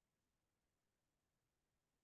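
Near silence: a pause in a screen-recorded stream with only a faint, even noise floor.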